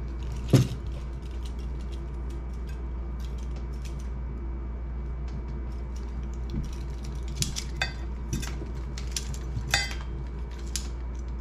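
Safety wire and lock-wire pliers clicking and clinking against a steel brake rotor and its bolt heads as the wire is twisted, with a louder knock about half a second in. A steady low hum runs underneath.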